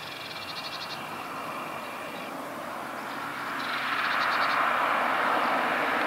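A road vehicle approaching: a steady engine-and-tyre noise swells from about three and a half seconds in and stays loud. A short, high, rapid trill sounds near the start and again as the noise builds.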